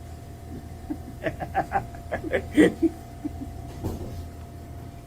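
A person laughing in a quick run of short chuckles about a second in, over the steady low rumble of a car's cabin, with a single click near the end.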